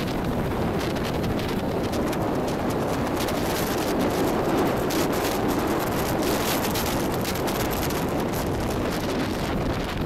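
Wind buffeting the microphone over a steady rumble of road noise from a moving vehicle.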